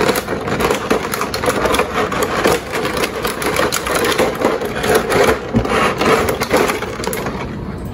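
Clear plastic blister tray crackling and crinkling as it is handled and pulled out of an action-figure box, a dense run of irregular crackles.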